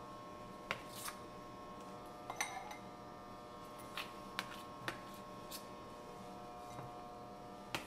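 A chef's knife chopping green onions on a plastic cutting board: faint, scattered taps of the blade striking the board, about eight of them at irregular intervals.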